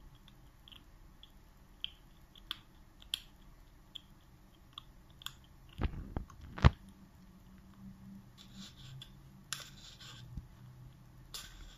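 Kitten scratching and biting at a cardboard roll on a rug: light clicks and scratches on the cardboard, a few dull thumps about six seconds in, then short scratchy rustles.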